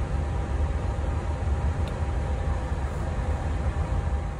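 Steady flight-deck ambient noise of an airliner on the ground: air-conditioning and equipment-cooling airflow with a strong low rumble and a faint steady tone. One faint click about two seconds in.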